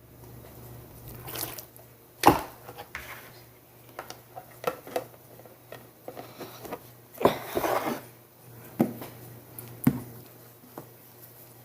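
Homemade slime and its bowls being handled: scattered knocks and clicks with soft squishing, two louder knocks about two seconds in and near the middle.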